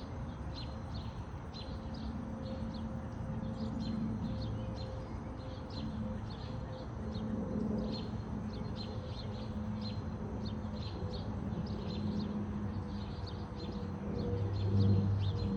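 Small birds chirping rapidly and repeatedly over a steady low mechanical hum, which grows louder near the end.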